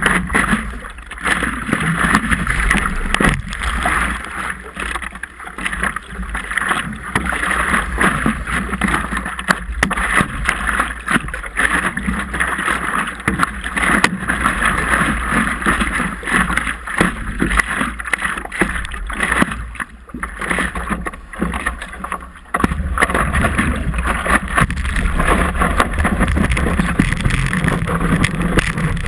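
Water sloshing and splashing against a stand-up paddleboard right at its nose-mounted camera as the board is paddled through choppy water, in irregular surges of splash.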